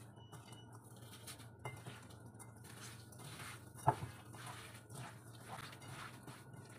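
Soft, irregular squelching and patting of a bare hand kneading raw ground-beef and rice stuffing in a bowl, with one sharper knock about four seconds in.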